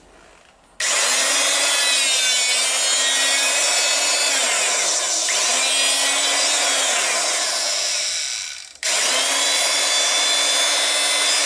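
Electric motor and hydraulic pump of an Ogura HPC-2213W portable hydraulic punch running with a high-pitched whine. Its pitch sags twice as the pump comes under load, and it cuts out briefly about two-thirds of the way through before starting again.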